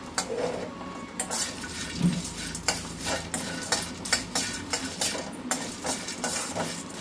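Green cardamom pods being dry-roasted and stirred in a steel pan: repeated scraping strokes and the rattle of the pods against the pan, a few times a second.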